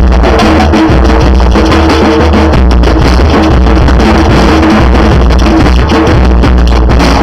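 Batucada drum group playing a loud samba rhythm: deep surdo bass drums under djembes and other hand percussion.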